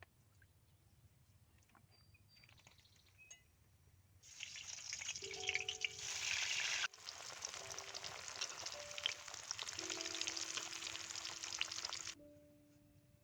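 Food frying in hot oil in a pan: a loud, crackling sizzle that starts abruptly about four seconds in, breaks off for a moment in the middle and cuts off shortly before the end. Soft background music notes play under it.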